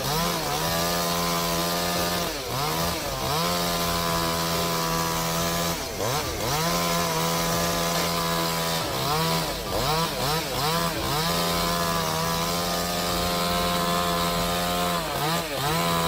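Chainsaw running at high revs, cutting into wood. Its engine note dips sharply and climbs back again and again as it bogs under the load of the cut and recovers.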